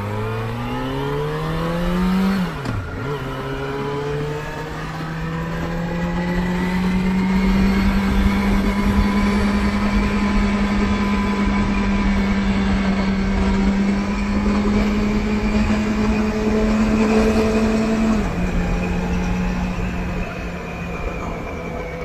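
Motorcycle engine pulling away and accelerating, its pitch rising, dropping sharply at a gear change about two and a half seconds in, then climbing again to a steady cruise. The pitch steps down slightly near the end. A low rumble of wind lies under the engine note, damped by a foam wind muffler on the action camera with its wind-noise reduction switched on.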